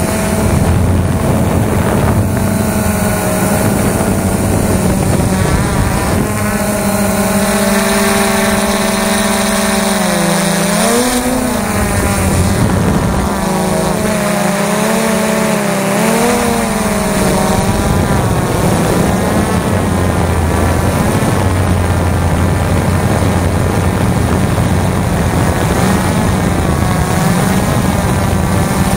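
The XK Detect X380 quadcopter's electric motors and propellers whine steadily over a constant hiss, as picked up by the camera riding on the drone. Twice, about ten and about fifteen seconds in, the pitch dips and swings back up as the motors change speed.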